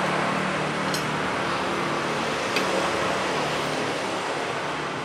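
Steady background hum and hiss, with two faint clicks about one and two and a half seconds in.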